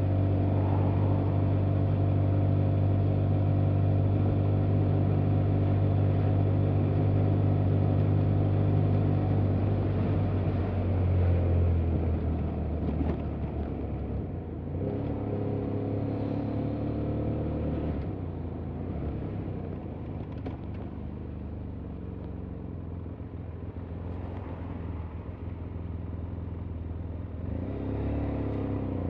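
BMW F800GT's 798 cc parallel-twin engine running at a steady cruise. About eleven seconds in, the note swells briefly, then the throttle comes off and the engine drops to a quieter, lower note as the bike slows. Near the end it picks up again.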